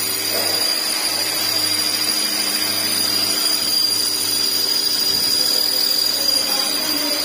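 Swift AMT gearbox noise with the engine running: a steady grinding whir with a constant high whine over it. The mechanic takes it for a broken clutch bearing.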